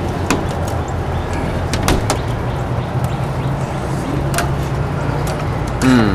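Tools working on a door's hinges: a few sharp metallic clicks and knocks at irregular intervals over a steady low hum, with a short falling-pitched sound near the end.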